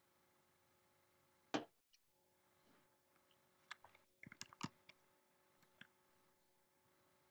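Near silence with a faint steady hum, broken by a sharp click about one and a half seconds in, a quick cluster of clicks around four to five seconds in, and one more click near the end.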